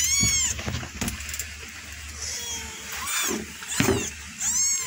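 Young kittens mewing repeatedly: about five short, high mews that rise and fall in pitch.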